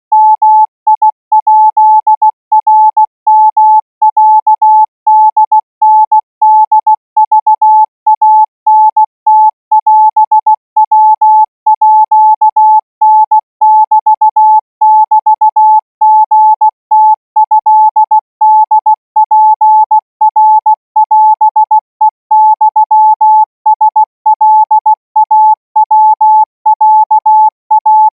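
Thai Morse code practice signal: a single steady beep keyed on and off in short dots and longer dashes at 20 words per minute.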